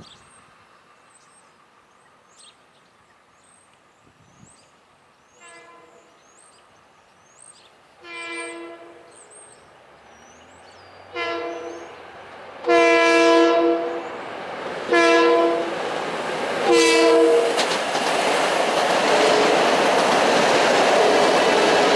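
Long Island Rail Road M7 electric train sounding its multi-note horn in a series of long and short blasts for the grade crossings, each louder as the train approaches. From about eighteen seconds in comes the steady noise of the train passing on the rails. Faint bird chirps come in the first half.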